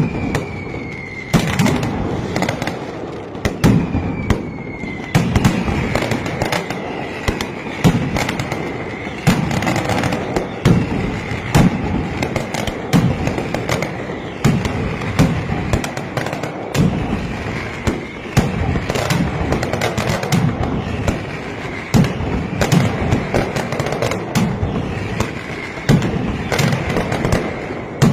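Mascletà firecrackers by Pirotecnia Peñarroja going off in a dense, uneven string of sharp bangs. High whistling firecrackers sound over them, the whistles falling slightly in pitch.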